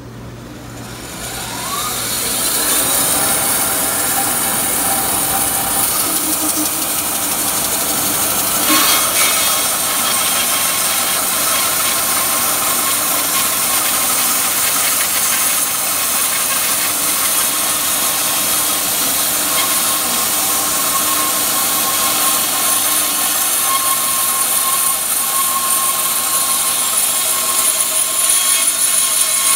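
Wood-Mizer band sawmill sawing through a log. The saw comes up to speed with a rising whine over the first couple of seconds, then runs steadily through the cut, with a brief sharp knock about nine seconds in. The blade is pulling down in the cut.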